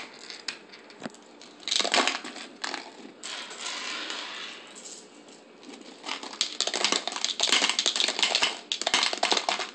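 Skittles candies dropping and rattling into a plastic water bottle, in clusters of quick clicks. In the middle comes a softer brushing as hands gather the candies on the countertop.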